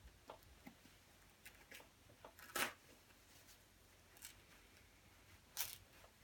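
Faint rustling and crinkling of a quilted nylon winter jacket's shell being picked at and torn by hand, with two short, louder scratchy tears about two and a half seconds in and near the end.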